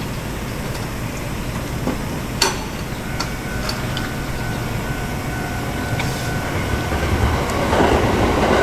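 Steady low rumble of a railway station with a tram standing at the platform, broken by one sharp click about two and a half seconds in. Near the end a train on the neighbouring track is heard approaching, its rumble growing louder.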